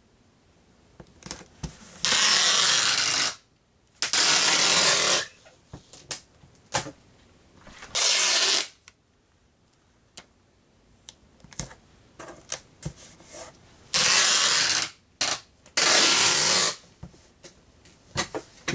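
Packing tape pulled off a tape gun in five long, loud screeching pulls while a cardboard box is sealed, with short clicks and taps of the dispenser and hands on the box between pulls.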